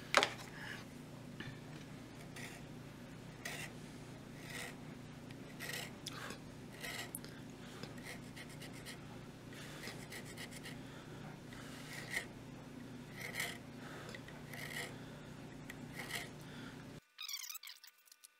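Short scraping strokes of a small hand saw cutting spiral flutes into a stabilized burl-wood handle, about one stroke a second. The sound stops abruptly near the end.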